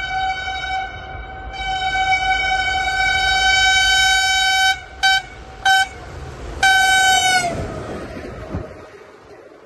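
Locomotive horn on an Egyptian Talgo train sounding a long single-note blast, then two short toots about five seconds in, then another blast whose pitch sags as it ends. The train's low rumble fades away afterwards.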